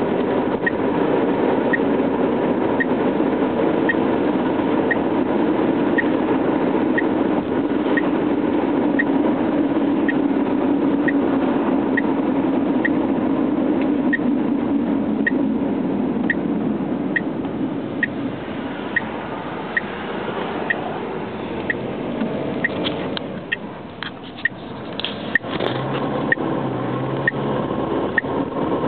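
Dashboard warning buzzer behind the gauge cluster of a 1997 Subaru Legacy, beeping about once a second on and on while the car is driven, heard over road and engine noise in the cabin. It is a fault with no known cause: it goes off at random, and the door sensors are ruled out.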